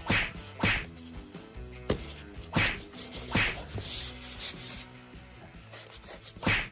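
A kitten scrabbling along cardboard maze walls: several brief, scratchy rubs of paws and claws on cardboard, over soft background music with sustained notes.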